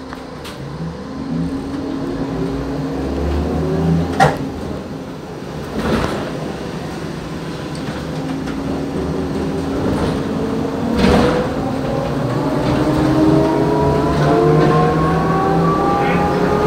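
Iveco Socimi 8820 trolleybus's electric traction motor whining from inside the passenger cabin, its pitch rising as the bus accelerates, once in the first few seconds and again from about halfway on. Three sharp knocks from the vehicle body break in along the way.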